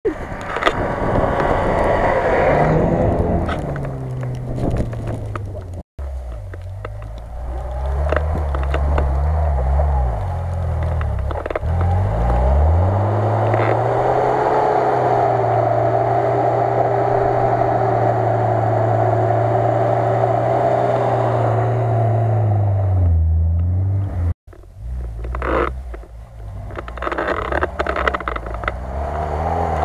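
Lada Niva off-roaders' engines driving through snow. First an engine note that falls away. After a cut, an engine held at steady high revs for about ten seconds as a Niva climbs a snowy track, easing off near the end. After a second cut, another engine revving unevenly.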